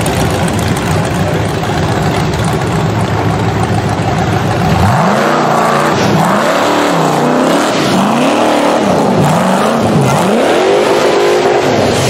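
Rock bouncer buggy's engine climbing a rocky hill: a steady low drone for the first few seconds, then revved up and down hard about five times in quick succession as the buggy scrabbles over the rocks.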